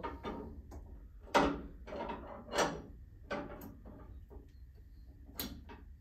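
Steel spare-tire crank rods and lug nut wrench clinking and knocking against each other as the wrench is fitted onto the end of the rod: a handful of separate metal clinks, each with a short ring.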